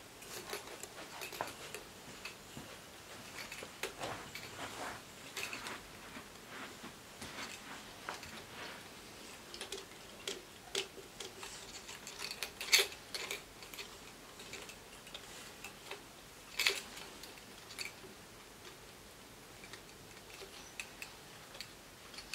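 Irregular light wooden clicks and clacks of a Pelham marionette being worked on its strings, with two louder clacks in the second half.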